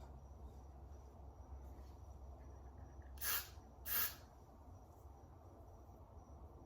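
Faint room tone with two short hissing puffs, about three and four seconds in.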